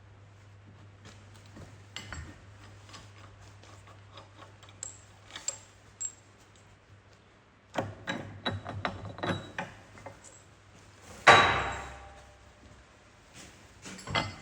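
Metal tools and parts being handled, with scattered light clinks and knocks, then one loud metallic clang with a short ringing tail near the end.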